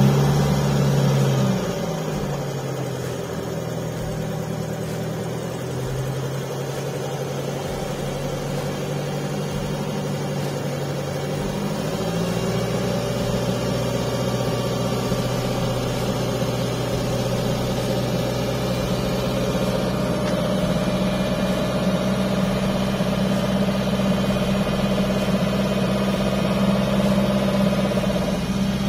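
1968 Citroën ID19's four-cylinder engine idling steadily. Its revs drop about a second and a half in, then rise again about twelve seconds in and hold at a faster idle.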